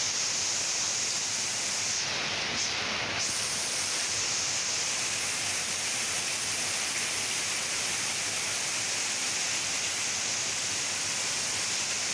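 Steady rushing of a small waterfall cascading over rocks into a river pool.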